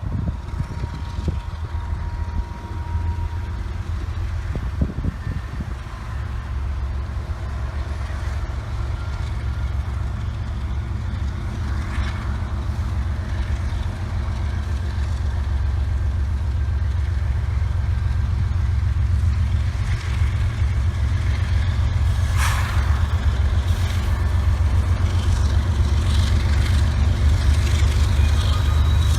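Diesel locomotive engines rumbling as a freight train approaches, growing steadily louder, with a brief hiss about two-thirds of the way through.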